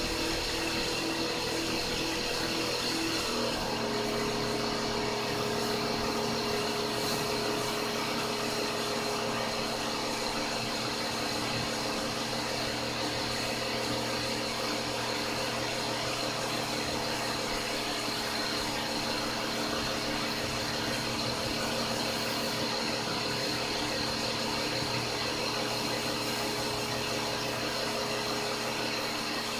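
Pump of a home-made foaming car-wash system running steadily, its tone changing once about three and a half seconds in.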